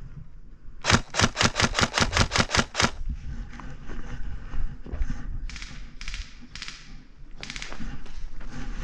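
Airsoft rifle firing a quick string of about a dozen evenly spaced shots over two seconds, followed a few seconds later by a few more scattered shots and a short burst.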